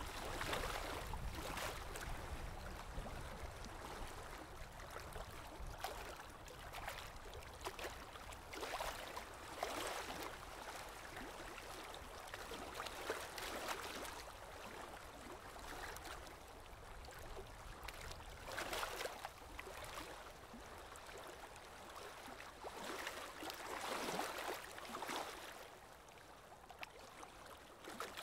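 Moving water, a steady rush and lapping that swells and eases every few seconds.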